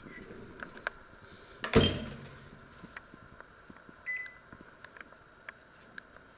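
Panasonic combination microwave oven: its door is shut with a single loud thud about two seconds in, then the control panel gives one short beep, and small clicks follow as the control dial is turned to set the time.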